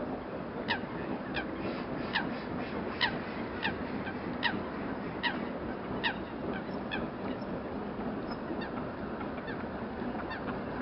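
Geese honking: about a dozen short, falling honks that thin out after about seven seconds. Underneath is the steady distant rumble of a passing steam train, a GNR Class N2 0-6-2T tank engine hauling coaches.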